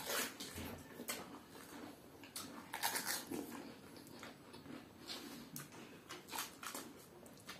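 People eating pani puri at speed: irregular crunches of the crisp puri shells and wet slurping of the spiced water, a few short crackles a second with the loudest about three seconds in.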